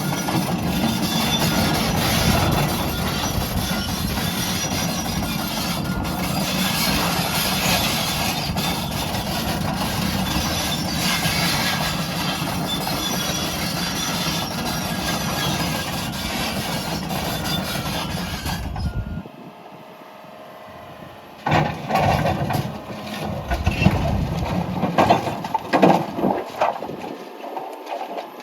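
John Deere 210G excavator's diesel engine and hydraulics running hard for about 19 seconds, then cut off abruptly. After that, a quieter stretch with a series of sharp knocks and clatters.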